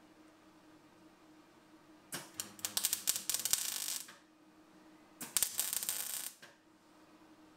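MIG welder stitch-welding steel supports: two bursts of crackling arc, the first about two seconds long and the second just over a second, with a short gap between.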